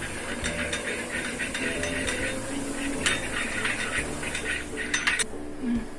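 Metal spoon stirring an oil and lemon juice dressing in a small glass bowl: a rapid run of clinks and scrapes against the glass that stops about five seconds in.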